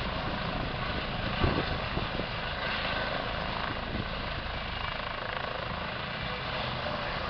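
Eurocopter EC135 helicopter hovering just off the ground at lift-off, its twin turbines and rotors running steadily. There is a brief thump about a second and a half in.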